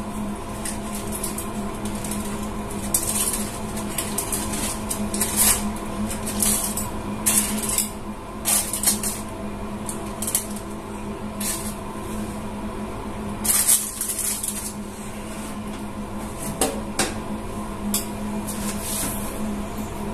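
Kitchen utensils and dishes clinking and scraping in short, irregular bursts, over the steady hum of a running kitchen appliance.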